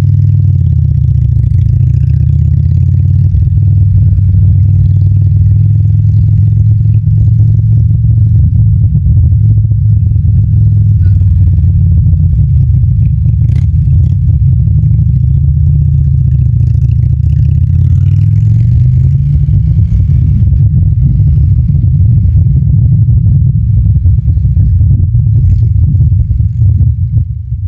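Harley-Davidson motorcycle's V-twin engine running steadily at a low pitch, the note drifting gently up and down with small throttle changes, then fading out at the very end.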